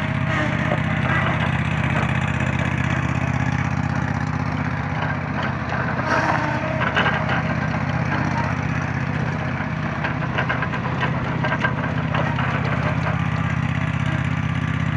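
Walker ride-on mower's engine running steadily as the mower is driven around, with some crackling around the middle.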